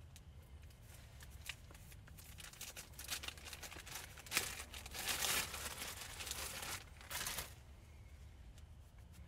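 Dry bark, twigs and leaves rustling and crackling as they are handled close up, in irregular bursts that grow louder after a few seconds and settle near the end.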